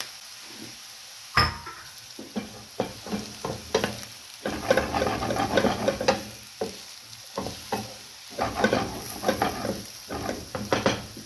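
Carrots, bell peppers and mushrooms sizzling in oil in a frying pan, stirred with a utensil that scrapes and taps against the pan in two busy spells. A single sharp knock on the pan about a second and a half in.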